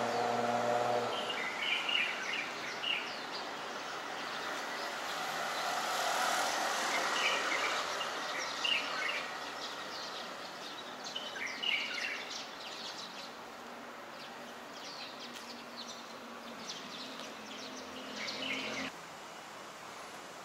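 City street ambience: a steady hum of traffic with small birds chirping in short runs several times. The sound cuts off abruptly near the end.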